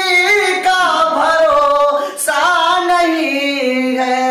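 A man's voice singing a devotional Urdu kalam, drawing out a long wavering melismatic phrase with no words. Near the end it settles onto a lower held note.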